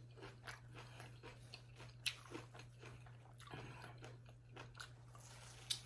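Close-miked eating: faint, irregular wet chewing and mouth clicks from eating soft, juicy mango. A few louder smacks come about two, three and a half, and near six seconds in.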